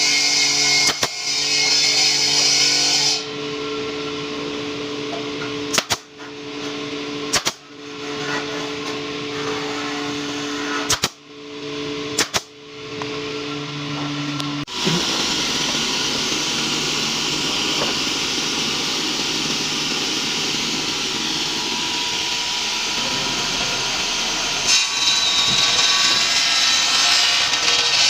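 Electric power tools working wood. In the first half a motor runs with a steady hum, broken by several abrupt cuts. From about halfway a steadier, noisier sound of a tool on wood takes over.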